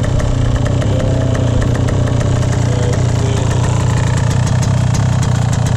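Freshly rebuilt Yamaha YZ125 single-cylinder two-stroke engine idling steadily, on its third break-in heat cycle on 32:1 premix.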